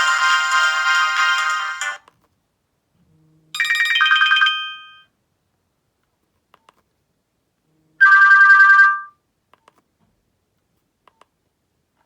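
Nokia 106 ringtones playing: a busy electronic melody cuts off about two seconds in, followed by two short electronic tones about four seconds apart, with faint ticks in the silences between.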